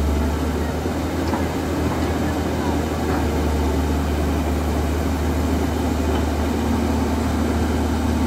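Caterpillar E200B excavator's diesel engine running steadily with a deep drone while the boom and bucket work.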